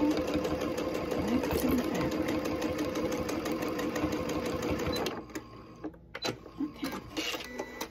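Electric sewing machine running steadily, sewing long basting stitches through a towel and fabric, then stopping about five seconds in. A few light clicks and fabric handling follow.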